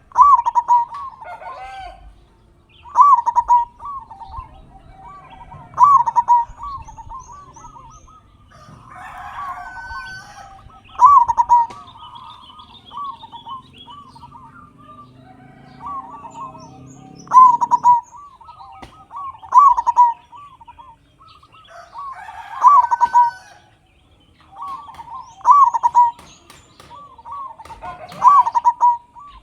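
Zebra dove (perkutut) singing its loud, repeated coo phrases, one about every two to three seconds. Other birds chirp and call more faintly in the background, with a couple of longer, harsher calls between the phrases.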